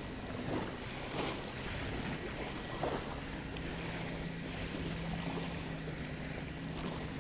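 Small waves lapping and splashing in shallow sea water right at the microphone, with some wind on the microphone. A faint low steady hum joins about halfway through.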